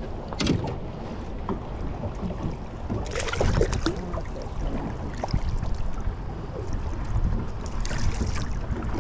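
Wind on the microphone and water lapping at a boat's hull. There is splashing about three seconds in and again near the end as a hooked catfish thrashes at the surface and is lifted out.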